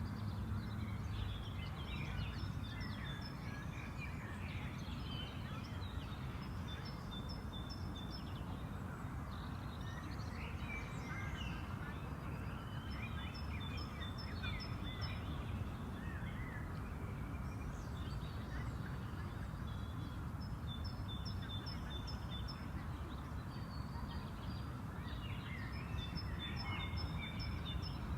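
Several songbirds singing and chirping over a steady low background rumble of park ambience. One bird repeats short series of evenly spaced high notes every few seconds.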